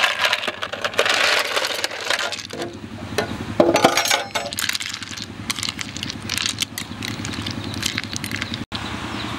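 Ice cubes clinking and rattling as a metal spoon scoops them from a plastic tub and drops them into a bowl of soup, followed by a metal ladle stirring the ice in the bowl. The clatter is busiest in the first half and thins out later.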